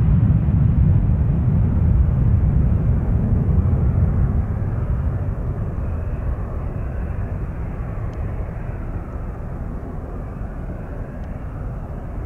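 Jet airliner engines: a deep, steady rumble that slowly fades over the seconds.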